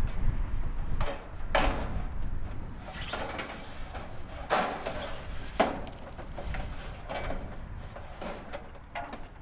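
Irregular knocks and clatters as a long sheet-metal gable trim piece is handled and pushed into place against the barn's roof edge, the sharpest knock a little past halfway, over a low rumble that fades.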